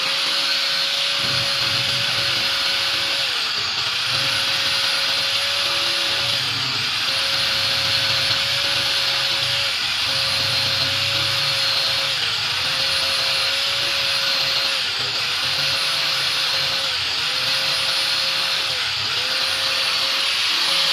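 Electric power tool motor running with a steady whine and hiss, its pitch dipping briefly about every two to three seconds.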